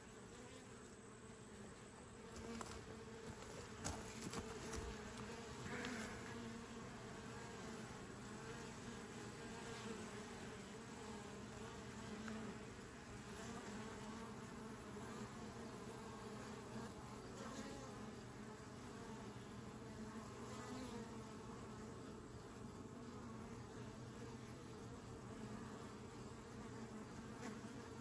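Honeybees buzzing steadily as they fly in and out of a hive entrance, with a few light ticks about three to six seconds in.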